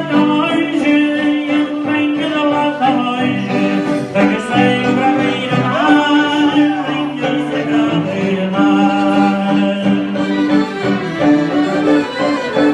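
Live band music playing for a dance, with held low notes under a moving melody.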